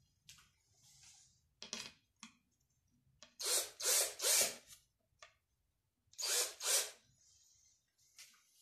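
Cordless drill run into plywood in short pulsed bursts: three quick pulses a little over three seconds in, then two more about two seconds later. Before them come a couple of short handling knocks.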